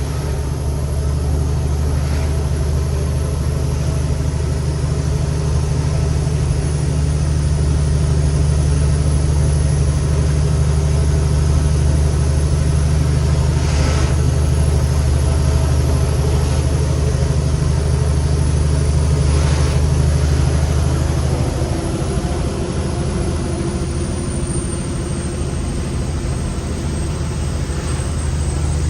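Cummins X15 diesel of a Kenworth T800 truck running steadily under load, heard from inside the cab, with a thin high whine over the drone. About two-thirds of the way through, the engine note changes and eases off for a few seconds.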